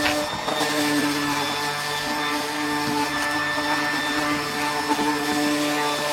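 Electric power sander running steadily, its motor hum carrying a buzzy high whine over the scratch of sanding.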